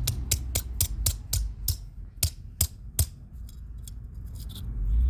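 A run of sharp clicks, about three a second, becoming fainter and quicker after about three seconds, over a low hum.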